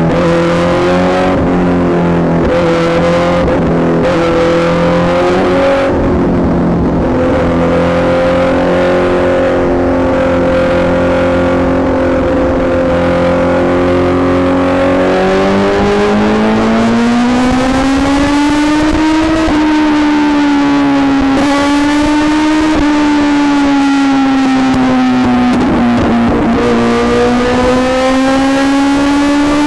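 Kawasaki motorcycle engine running under way, free of wind noise. It holds a steady note for about fifteen seconds, then rises in pitch and wavers up and down with the throttle, dips briefly near the end and climbs again.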